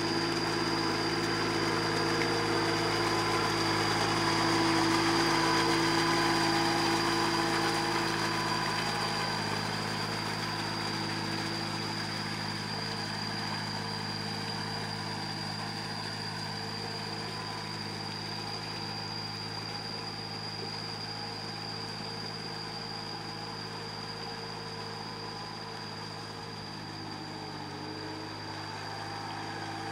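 Small diesel tractor engine running steadily under load as the tractor, on steel cage wheels, drags a levelling board through flooded paddy mud. It is loudest about five seconds in and grows gradually quieter after.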